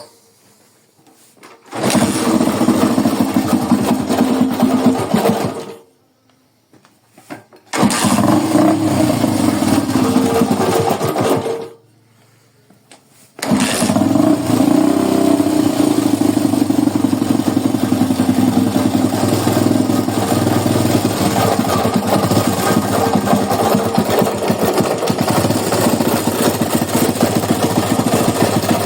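Honda CG 125 Today motorcycle's single-cylinder four-stroke engine started and run three times. It runs about four seconds and stops, runs again for about four seconds and stops, then starts a third time and keeps running. It has a strange engine noise, which the mechanic traces to worn crankshaft bearings.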